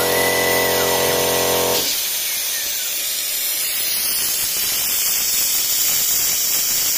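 Small 800 W milling spindle and machine motors running with a steady whine while cutting aluminium. The whine cuts off suddenly about two seconds in, leaving a steady hiss of coolant mist spray.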